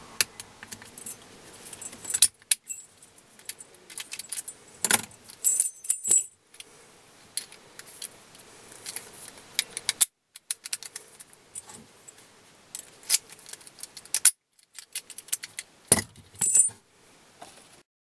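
Metal-on-metal handling of an Abus padlock: small brass keys on a ring jangling against the lock, with scattered sharp clicks and brief clusters of bright jingling.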